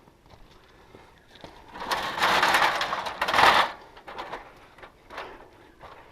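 A rooftop tent being slid into position across a vehicle's roof rack: a rough scraping lasting about two seconds, followed by a few softer knocks.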